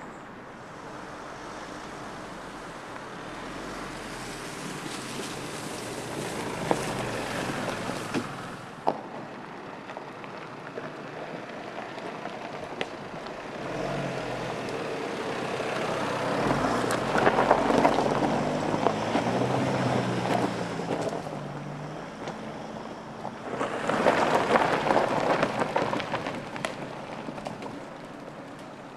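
A Mitsubishi ASX SUV driving slowly off-road over dirt and a bed of logs: the engine can be heard running, strongest in the middle, under a rushing noise of tyres and wind that swells twice, with a few sharp knocks as the wheels go over the logs.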